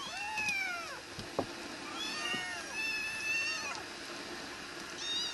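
Several young kittens mewing, high-pitched rising-and-falling calls overlapping one another: hungry kittens waiting to be fed.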